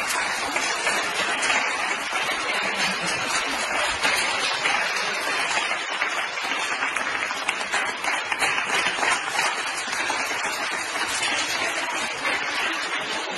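Steady applause from a group of hospital staff clapping, a dense crackle of many hands that carries on without a break.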